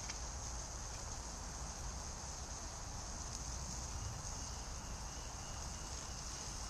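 Steady woodland ambience: a constant low rumble of distant motorway traffic under a steady high-pitched hiss.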